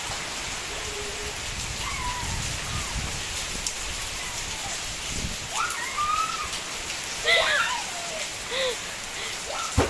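Steady rain falling, with a few faint distant voices calling about two thirds of the way through.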